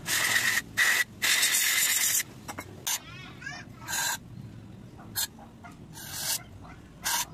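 Aerosol cleaner sprayed in hissing bursts onto a throttle body: a long spray in the first couple of seconds, then several short spurts. A short warbling chirp about three seconds in.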